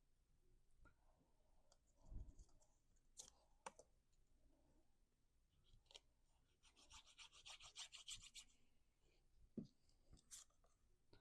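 Faint handling of paper cardstock: soft rubbing and scratching with a few light taps and clicks, and a short run of quick rubbing strokes about two thirds of the way through as a panel is pressed down.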